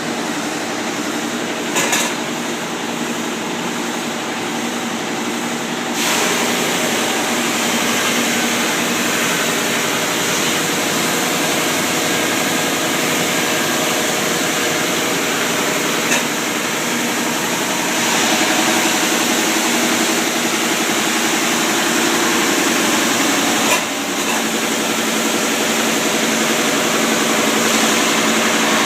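Power sander running steadily on a wooden deck post. It gets brighter and a little louder about six seconds in and again past the middle, with a few short knocks along the way.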